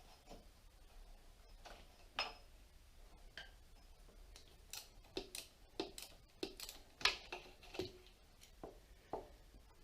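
Faint, irregular light clicks and taps of hand tools and small metal parts being handled while the ignition coil of a Suzuki GS550 motorcycle is taken off. The taps come more often in the second half.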